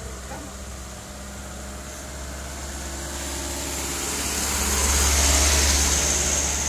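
A light diesel truck loaded with sugarcane drives by on a hill road, its engine and tyre noise growing steadily louder to a peak about five seconds in as it passes close, then easing off.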